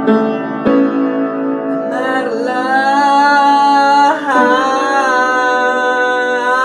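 A man singing with acoustic piano. Two piano chords are struck, then from about two seconds in he holds two long sung notes over the ringing piano, with a short break between them at about four seconds.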